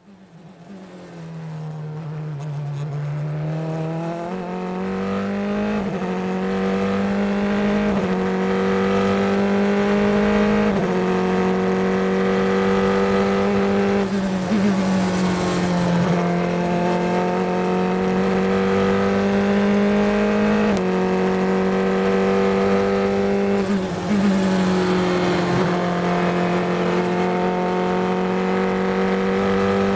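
Formula Three racing car's engine at full throttle, heard onboard. The note climbs steadily in each gear and drops sharply at each gear change, several times over, with short lifts for corners.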